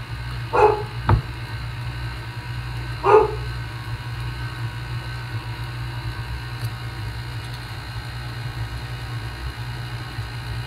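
Stand mixer running steadily on low speed with a low hum, as flour mixture is added to the batter. A dog barks twice, about half a second in and about three seconds in, with a single sharp knock just after the first bark.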